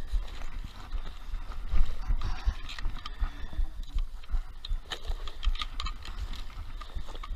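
Rustling and clicking of a carp being handled and weighed in a weigh sack, over a low, uneven rumble on the microphone.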